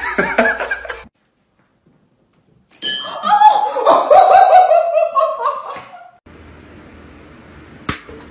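A person laughing loudly for about three seconds, the pitch sliding down repeatedly, with a single sharp click near the end.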